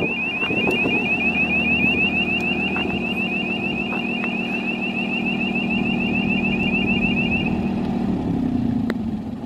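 Kubota three-cylinder diesel of a mobile lighting tower running steadily, with a rapid repeating high chirping warning alarm sounding while the hydraulic mast is lowered. The alarm stops a couple of seconds before the end, and the engine note shifts slightly just after.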